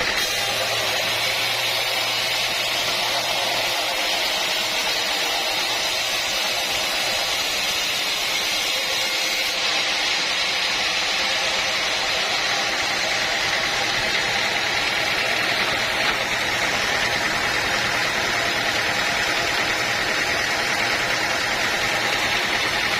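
Sawmill machinery running steadily, a dense, unbroken mechanical noise with no pauses. A low hum drops out about four seconds in.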